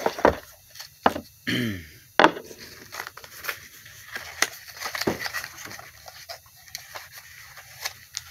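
Hands handling a small plastic case of tattoo-pen spare parts, making a string of clicks and taps, the sharpest about two seconds in. There is a brief low hum of voice just before it.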